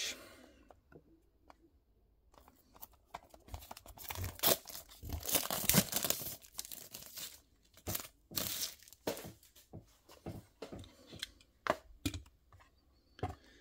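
Clear plastic wrapping being torn and peeled off a small cardboard model-car box. It crinkles and crackles irregularly, starting about three seconds in and dying away near the end.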